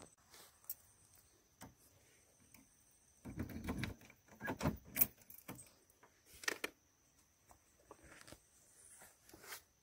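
Faint footsteps on dry grass with small handling clicks and rustles, a denser patch of rustling a few seconds in and a handful of sharp clicks near the middle.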